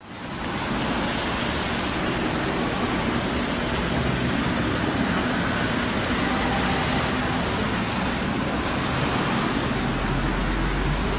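Steady outdoor street noise: an even rushing hiss over a low rumble, fading in over the first second, with the rumble growing stronger near the end.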